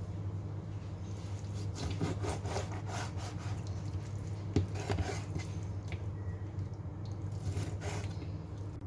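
Chef's knife cutting raw chicken leg meat on a plastic cutting board: a run of uneven knife strokes, each a short scrape and tap against the board, starting about two seconds in. A steady low hum runs underneath.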